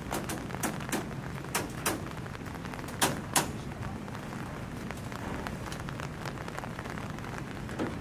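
Irregular sharp knocks of construction work on rebar and timber formwork, a few a second for the first three and a half seconds, the two loudest near three seconds in, then only faint ticks, over a steady low hum.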